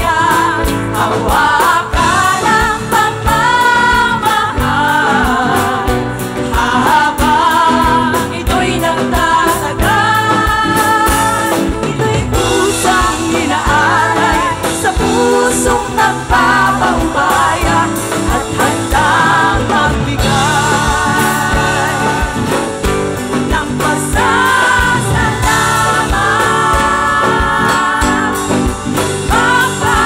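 Live band music with a woman singing lead over hand drums, percussion and keyboard, the drums keeping a steady, busy beat.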